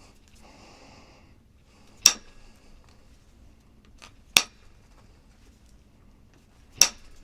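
Flintknapping: three sharp strikes of a knapping hammer on a stone core, about two and a half seconds apart, each knocking a flake off. Before the first strike there is a brief faint scraping, like the stone's edge being abraded.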